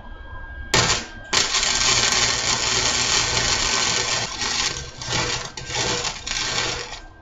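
Wire-feed welder arc crackling on steel: a short burst about a second in, then one continuous bead lasting nearly six seconds that stops just before the end.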